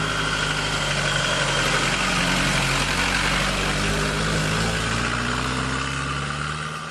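A motor vehicle's engine running close by: a steady low hum with a hiss over it, its pitch drifting slightly, fading out near the end.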